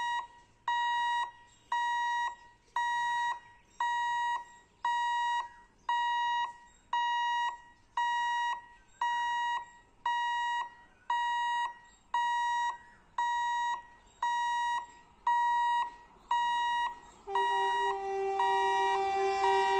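Level crossing warning beeper sounding about once a second, each beep about half a second long, as a train approaches. About three-quarters of the way through, the approaching electric locomotive's two-tone horn starts and holds steady, louder than the beeps.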